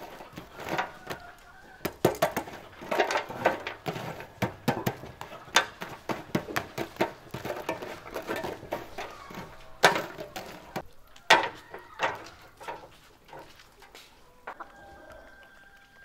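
Metal tongs raking burning charcoal in a steel mangal: a dense run of clinks, scrapes and knocks of the brittle coals against each other and the metal, with two louder knocks about ten and eleven seconds in. Near the end, a chicken clucking.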